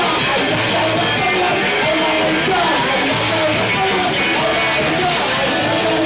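Hardcore punk band playing loud, with electric guitar and vocals.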